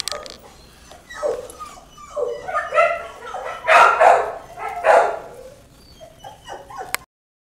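Young puppy giving a string of short calls, about a second apart, the loudest in the middle; the sound cuts off suddenly about seven seconds in.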